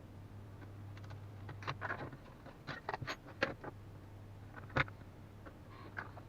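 Scattered light clicks and taps of small objects being handled, clustered in the middle with one sharper click a little before the end, over a steady low hum.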